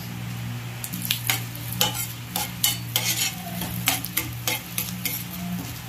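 Mustard seeds, urad dal, chana dal and dried red chillies sizzling in hot oil in a kadai while a spatula stirs them. The spatula scrapes and clicks against the pan about twice a second from about a second in.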